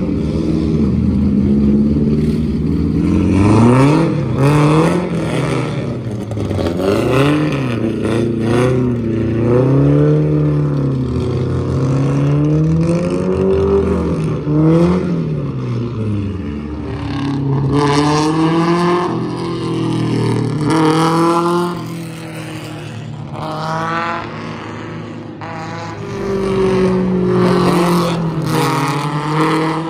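Race car engines running around a short oval track, their pitch repeatedly rising and falling as the cars accelerate, lift and pass by.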